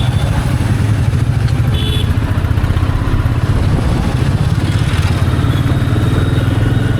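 Royal Enfield Bullet Standard 350's single-cylinder engine running steadily under way, with its low, even exhaust thump. A brief horn toot from traffic sounds about two seconds in.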